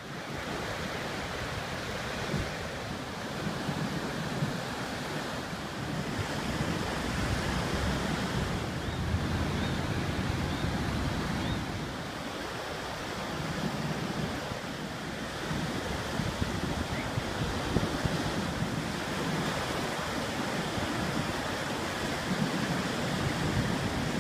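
Ocean surf breaking on a beach, about 4 to 5 foot waves: a continuous rush of water that swells and eases every few seconds as waves break and wash in.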